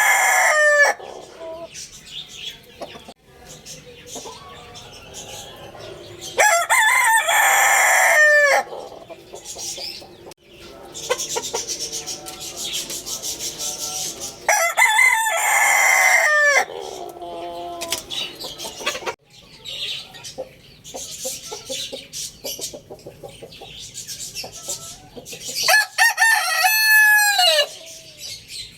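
Roosters crowing: the end of one crow at the start, then three long crows about eight to ten seconds apart, each dropping in pitch at the end. Softer clucking and chirping comes between the crows.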